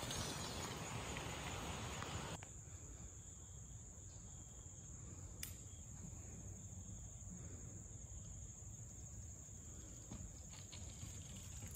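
Faint, steady high-pitched chirring of insects. In the first two seconds a rushing noise from the ride lies over it and cuts off abruptly, and there is a single click about five seconds in.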